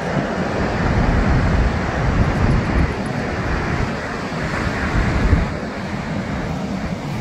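Wind buffeting the microphone in a loud, uneven low rumble, over the steady wash of surf breaking on rocks, swelling briefly around a second in and again about five seconds in.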